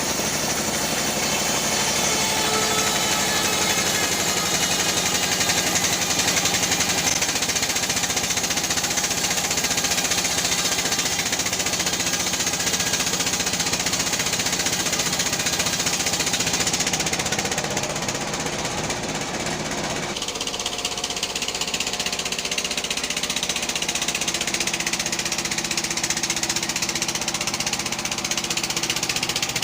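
Sawmill band saw running and cutting teak, a loud steady machine din with a fast, even rattle. The sound changes about twenty seconds in.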